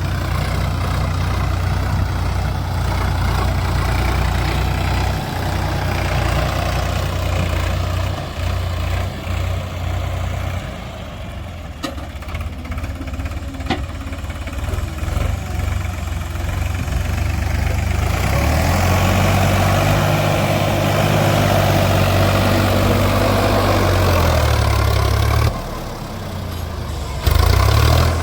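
Heavy diesel machinery engine running steadily, with its note shifting about two-thirds of the way in, a brief dip in loudness near the end, and two sharp clicks near the middle.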